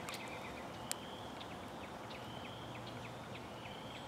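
Faint wild animal calls at the creek: short high chirps repeating at a steady pace, with a few longer high trills of about half a second each, over a low hiss. A single light click about a second in.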